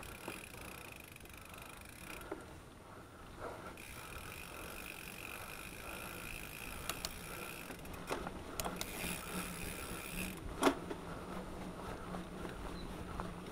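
Mountain bike rolling along a dirt trail: a steady high whir that drops out for a second or two about two seconds in, under scattered sharp rattles and knocks from the bike going over bumps, the loudest one about three quarters of the way through.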